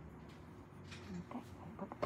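Quiet room tone with a few faint clicks and small handling noises in the second half.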